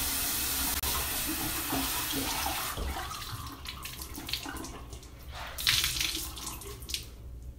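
Sink tap running steadily, shut off about three seconds in, followed by scattered splashes of water during face washing.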